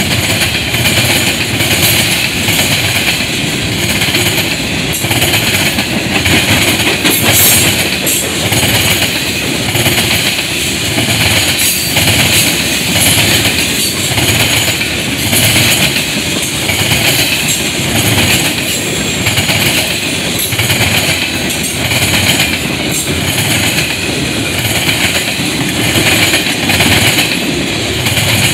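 Freight train of covered hopper and tank cars rolling past, its steel wheels clattering over the rail joints in a steady, regular rhythm.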